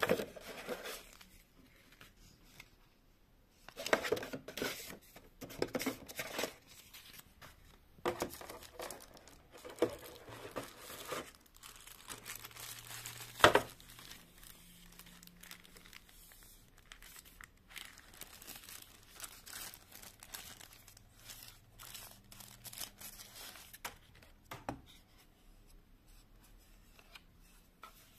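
Thin plastic wrapping crinkling and rustling in irregular bursts as it is handled and pulled off a boxed monitor light bar, with one sharp knock about halfway through.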